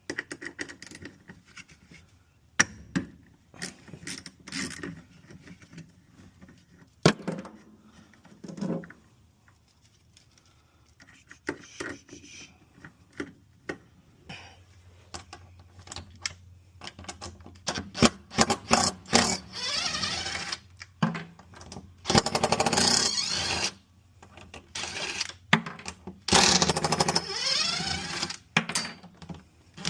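Tools and metal parts being worked on a Whirlpool Cabrio top-load washer during teardown for a tub bearing replacement. Scattered knocks and clanks come first. From the middle on, loud, longer rattling bursts of tool work follow one after another.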